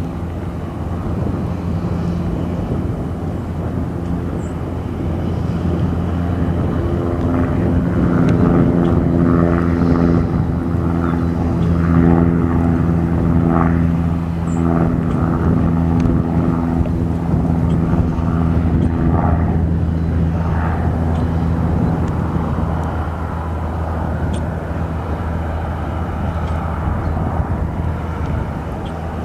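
Light propeller airplane's piston engine droning steadily, growing louder through the middle and easing off toward the end as the aircraft passes.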